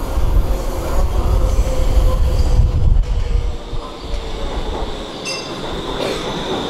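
Stockholm metro train running through the station: a heavy low rumble that eases off about halfway, then a steady high-pitched wheel squeal from about five seconds in.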